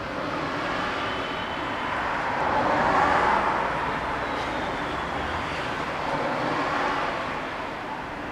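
Road traffic noise from passing cars, swelling loudest about three seconds in as a car goes by, and again more gently near the end.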